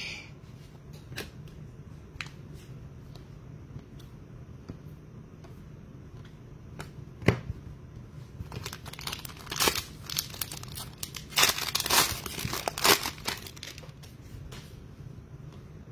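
Foil wrapper of a Select Draft Picks football card pack being torn open and crinkled. A run of rustling tears and crackles lasts about five seconds in the second half, after a few light clicks of cards being handled.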